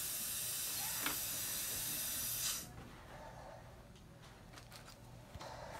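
Steady high hiss of dental air equipment working in the patient's mouth, cutting off suddenly about two and a half seconds in, followed by a few faint clicks of instruments.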